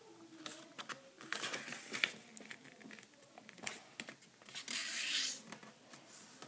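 Sheet of origami paper rustling and crinkling as it is folded in half and the fold pressed flat, with scattered light ticks and a longer rubbing swish about five seconds in.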